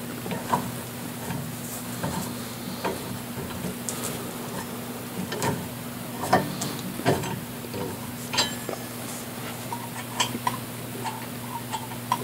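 Irregular metallic clicks and clinks of a lug wrench on a car wheel's lug nuts as it is fitted and worked, coming a few a second near the end.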